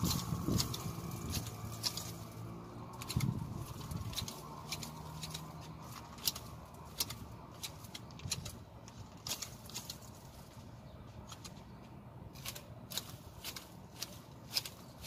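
Manual hedge shears snipping through leafy hedge twigs: repeated sharp clips, about two a second, in irregular runs. A low hum runs under the first few seconds and fades out about four seconds in.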